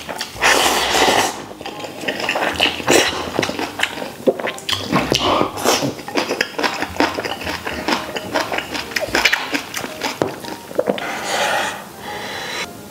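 Close-miked eating sounds: a long slurp of glass noodles about half a second in, then steady chewing and lip-smacking with many small wet clicks, and another long slurp near the end.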